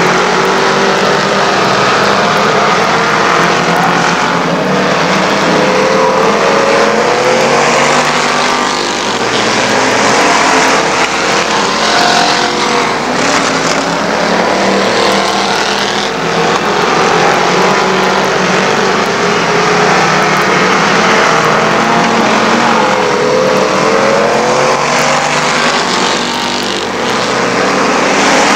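A field of street stock race cars running hard in a heat race, several engines at once, their notes overlapping and rising and falling as the cars go through the turns.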